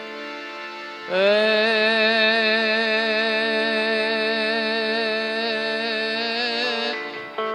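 Indian devotional music: a singer's voice glides up about a second in and holds one long wavering note for about six seconds over steady instrumental accompaniment.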